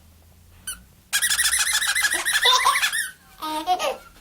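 Rapid, high-pitched bird chirping, a fast run of repeated chirps lasting about two seconds and starting about a second in, followed near the end by a shorter, lower warbling.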